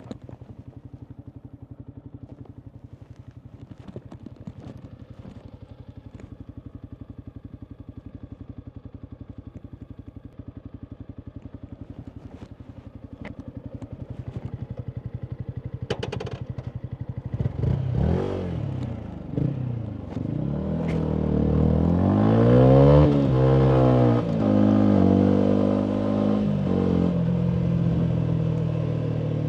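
Yamaha MT125's single-cylinder engine through a full Akrapovic exhaust, idling steadily with an even pulse and a few sharp clicks for about the first sixteen seconds. Then the bike pulls away and gets much louder, the revs climbing and dropping as it goes up through the gears.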